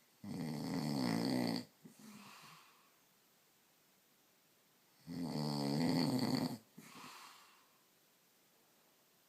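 A man snoring in his sleep: two long, loud snores on the in-breath about five seconds apart, each followed by a softer breath out.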